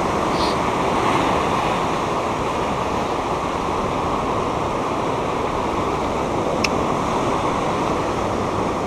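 Rough ocean surf breaking and churning over a lava-rock shoreline: a steady rushing of white water. One brief sharp click sounds about two-thirds of the way through.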